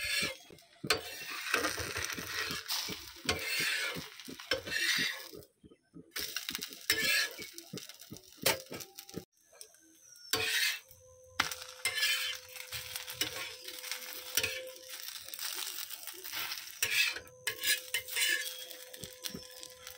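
Thin rice-batter crepe sizzling in oil on a hot iron tawa, with a metal spatula scraping and clicking against the pan as it is worked loose and lifted. A steady hum joins about halfway through.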